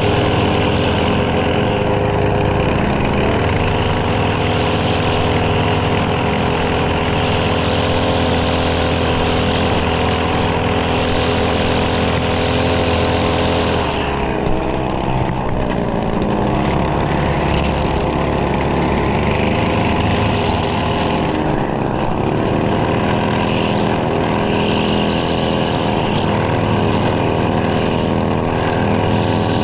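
Lawn mower engine running steadily at working speed, its pitch sagging briefly about halfway through and again a little later before recovering.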